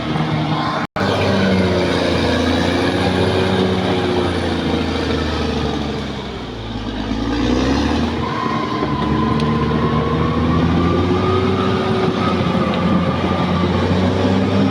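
Caterpillar D6R XL bulldozer's diesel engine running steadily under working load, its pitch sagging about six seconds in and then climbing back. A brief cut-out of the sound just under a second in.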